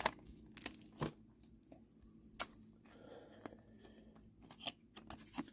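Faint crinkles and ticks of a foil Pokémon booster pack and its trading cards being handled as the cards are pulled out, with a few sharper clicks, one about a second in and another about two and a half seconds in.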